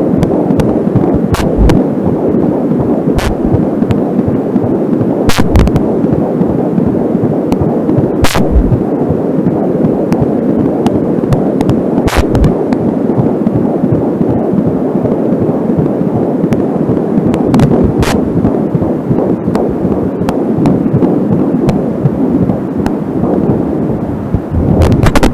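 Angelsound handheld fetal doppler picking up the heartbeat of a 13-week fetus as a continuous pulsing doppler sound. Sharp static pops from a poor audio-cable connection break in every few seconds.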